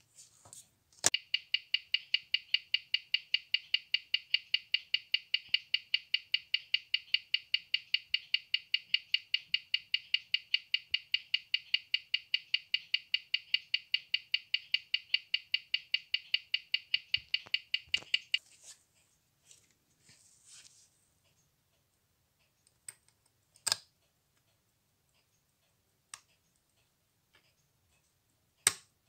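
A 1930 Junghans mechanical watch movement ticking on a timegrapher's microphone stand, amplified, as sharp, perfectly even ticks about five a second. The ticks stop about 18 seconds in, and a few faint handling clicks follow. The timegrapher reads +1 s a day with 0.0 ms beat error: the freshly restored movement is running in beat and well regulated.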